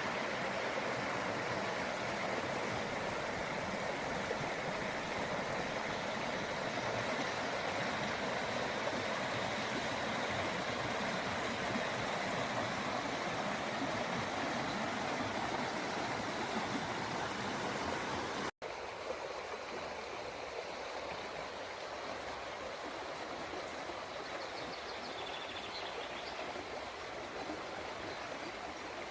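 River water flowing, a steady rushing. About 18.5 s in it cuts to a quieter, thinner rush, with a few faint high chirps near the end.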